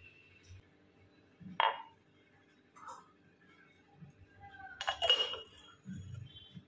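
Steel tea strainer and utensils clinking against a ceramic mug: a few short separate clinks, the loudest and longest cluster about five seconds in as the strainer is set on the mug, then a low thump.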